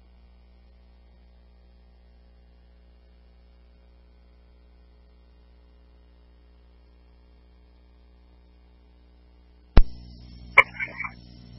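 Dispatch radio recording with the channel idle, giving only a faint steady hum. Near the end the channel keys open with a sudden loud click into hiss, followed by a few short blips of transmission.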